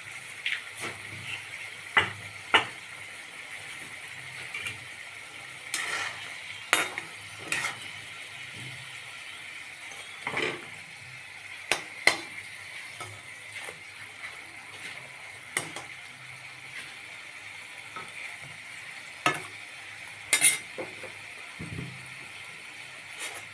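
Samosas deep-frying in hot oil, a steady sizzle. A utensil clicks and knocks against the pan about a dozen times.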